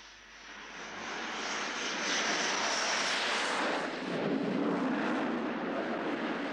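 Twin-engine jet fighter taking off at full power: the jet noise swells over the first two seconds with a high whine on top, holds, then falls away near the end as the aircraft climbs off.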